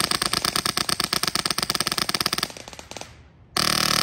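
HPA airsoft rifle with a Polarstar Jack engine firing a very rapid full-auto string of shots. The string stops about two and a half seconds in, and dense, continuous firing starts abruptly near the end.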